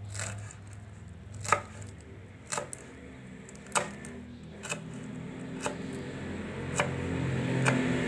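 Sharp knife cutting papaya leaves on a wooden cutting board, single chops about once a second. Soft background music underneath, growing louder near the end.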